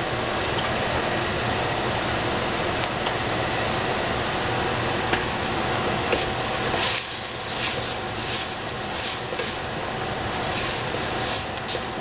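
Sliced onion and capsicum frying in a stainless steel pot, a steady sizzle. From about halfway, a quick run of short, sharp scrapes as a wooden spatula stirs the vegetables.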